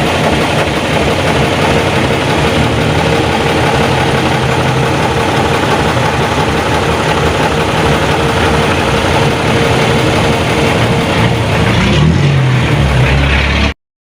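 Diesel engine of an old FNM (Alfa Romeo) truck running steadily. Its low note shifts about twelve seconds in, and the sound cuts off abruptly near the end.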